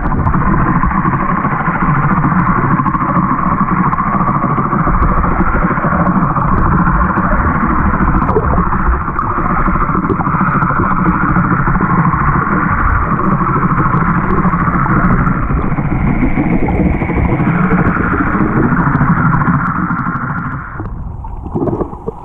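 Steady, muffled underwater drone picked up through an action camera's waterproof housing, with nothing in the upper treble. It drops away about twenty seconds in as the camera nears the surface.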